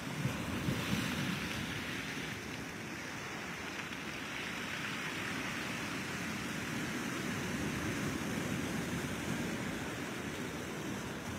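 Ocean surf breaking and washing over a shore of dark rocks and boulders, a steady wash of water with a louder break in the first second.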